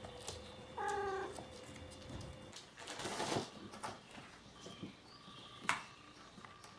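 A kitten meows once, briefly, about a second in. Soft rustling and a few light knocks follow, the sharpest near the end.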